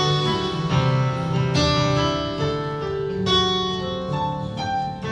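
Instrumental worship-band music with guitar and keyboard playing chords, without singing.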